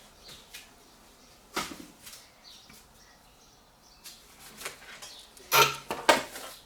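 Small objects being handled and set down: a sharp clack about a second and a half in, then a few light taps and two louder knocks near the end.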